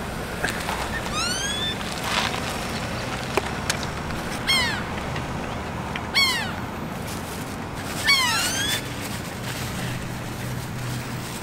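Animal calls: about four short whistle-like cries spaced a couple of seconds apart, each gliding up or down in pitch, over a steady low hum.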